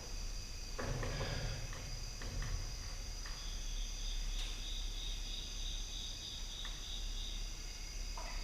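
Crickets chirring steadily, with a few light knocks and rustles in the first couple of seconds over a low hum.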